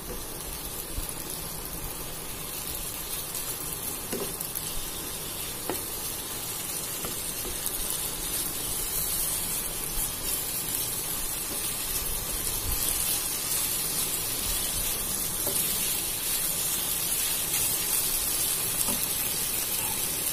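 Sliced potatoes sizzling as they fry in oil in a pan, growing a little louder as they go, with a few light taps and scrapes of a wooden spatula stirring them.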